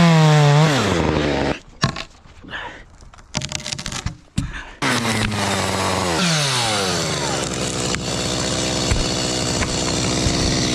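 Chainsaw engine revved and falling back in pitch, then a quieter stretch with a few knocks and clicks. About five seconds in the saw revs up again, its pitch sinks and it settles into a steady run.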